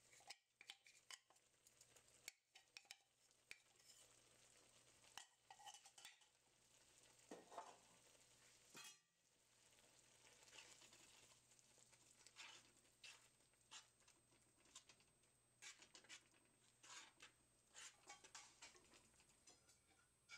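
Very faint, scattered taps and scrapes of a spatula against a frying pan as ground poppy seeds are stirred into simmering curry gravy.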